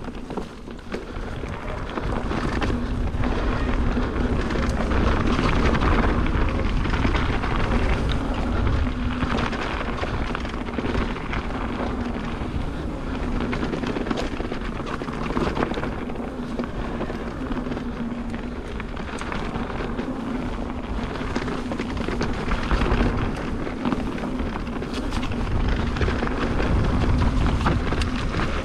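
Mountain bike riding down a dirt trail: wind buffeting the microphone, with tyre noise and quick rattling clicks from the bike throughout and a faint steady low hum underneath.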